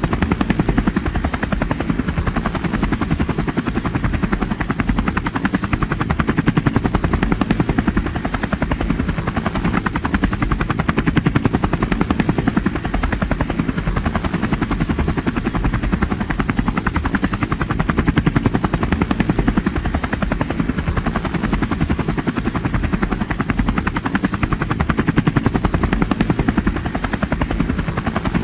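Helicopter running steadily, its rotor blades chopping in a rapid, even rhythm over the turbine and engine noise.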